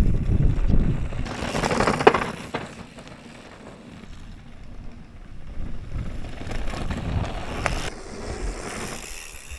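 Mountain bike riding past on a dirt trail: knobby tyres crunching over dirt and gravel, with rattling and clicking from the bike, and a sharp knock about two seconds in. Louder at the start, quieter in the middle.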